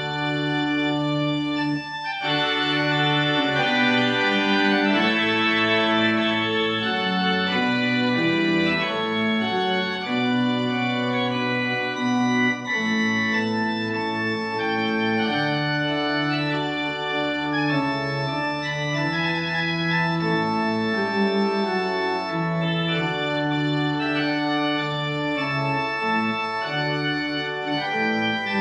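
Two-manual church organ played in slow held chords, the chords changing every second or two with a moving upper line.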